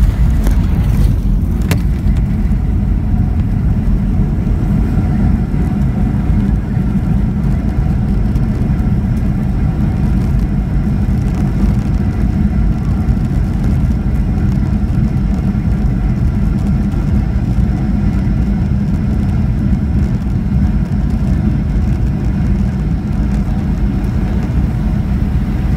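Cabin noise of a Boeing 737-800 on its landing rollout: a loud, steady low rumble of its CFM56 engines and the wheels on the runway, heard from a seat over the wing. A short knock about two seconds in.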